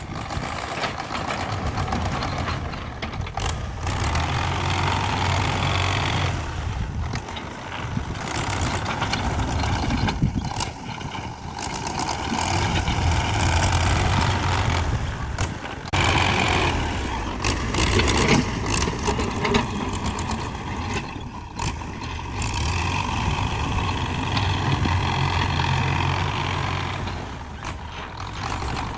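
Heavy diesel construction machinery and trucks running and working, the engine note changing abruptly several times.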